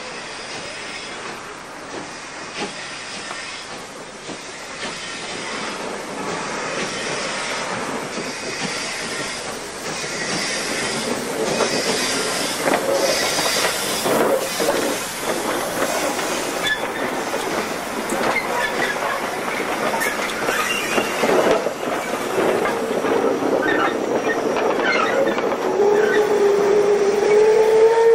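Steam locomotive working past at close range: exhaust chuffing and wheels rolling, growing louder, with short wheel squeals in the middle. Near the end the locomotive's steam whistle starts to blow, one steady held note.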